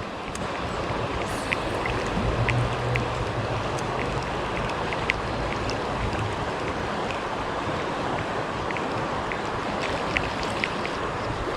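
Creek water running steadily over rocks, with a few small ticks scattered through it.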